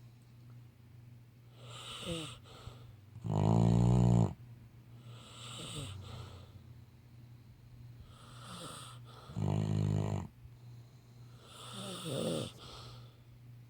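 A sleeping Labrador Retriever snoring: two loud, buzzing snores about six seconds apart, with quieter hissing breaths between them.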